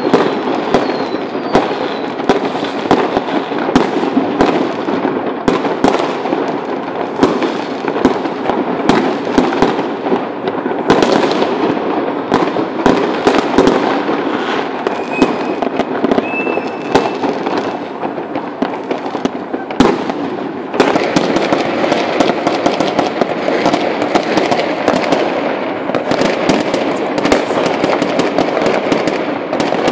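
Many fireworks and firecrackers going off at once, a continuous crackling din with frequent sharp bangs. One bang about twenty seconds in is louder than the others.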